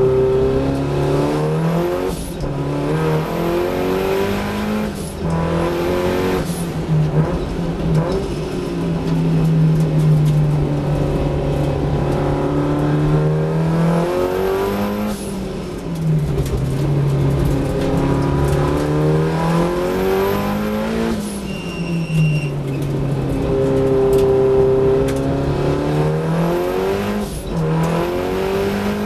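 Datsun 1600 race car's four-cylinder engine heard from inside the cockpit at racing speed. Its note climbs under acceleration and drops back off into corners several times over.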